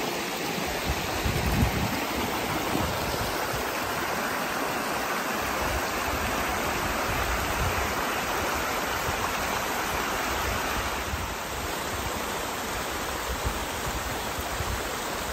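Steady rush of water from a rocky mountain stream and waterfall, splashing over stones.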